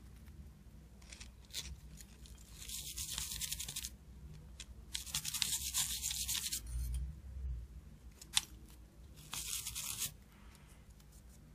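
Toothbrush bristles scrubbing a small circuit board in three short bouts, cleaning the solder pads where a USB socket was removed. A single light click comes between the second and third bouts.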